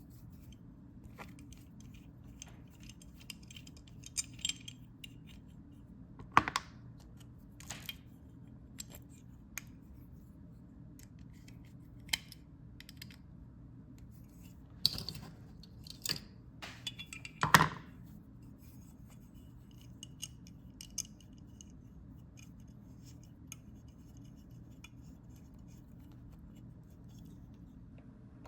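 Hand leatherworking tools being handled and used on leather: scattered clicks, snips and taps, with two louder knocks about six and seventeen seconds in.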